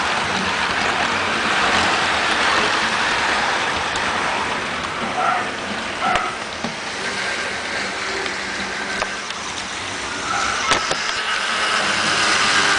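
HO-scale model passenger train running on its track: a steady rolling whir of wheels and the diesel locomotive's motor, louder as the train passes close at the start and again near the end, fainter in the middle, with a few sharp clicks.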